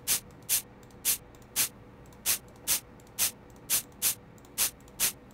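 Short, hissy 'Air' noise sample from the DUBturbo software drum machine, sounding about eleven times at slightly uneven half-second intervals as each step on its row is clicked in.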